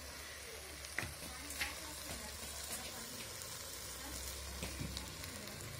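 Chicken curry sautéing in an aluminium pot, a steady low sizzle, with a couple of faint ticks about a second in. The chicken is nearly done being fried down in its masala.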